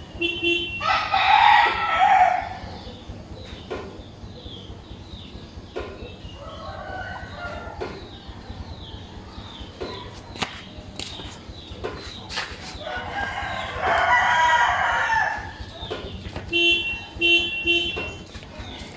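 A rooster crowing twice, each call lasting about two seconds, with a steady low hum underneath. Near the end a run of short, evenly spaced electronic beeps starts.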